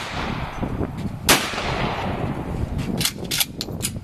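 Gunshots: one sharp, loud shot about a second in, then a quick string of four fainter cracks near the end.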